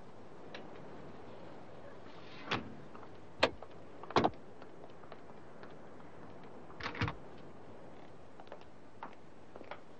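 Car doors opening and slamming shut: a few sharp knocks and clicks, the loudest about three and a half and four seconds in, with another double knock near seven seconds and a few light ticks after it.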